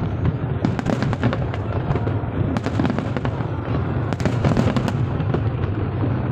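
Aerial fireworks shells bursting in quick succession, dense bangs and crackles over a steady low rumble. The volleys are thickest about a second in, near three seconds and past four seconds.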